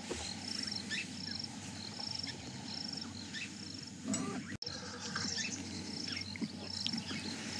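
Evening grassland ambience: an insect, most likely a cricket, chirping steadily at about three chirps every two seconds, with short scattered bird calls over it, which may be the alarm-calling birds the guide hears around the cubs.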